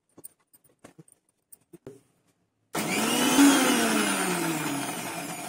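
A few light taps as the steel jar is handled. About three seconds in, an electric mixer grinder switches on and runs loudly, grinding wet masala into a paste, its whine sliding lower.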